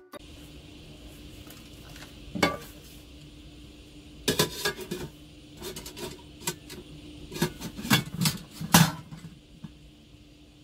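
A metal camping pot's lid and wire handle being handled on a portable stove: a dozen or so sharp clinks and knocks, scattered at first and bunching together near the end. A steady low hum runs underneath.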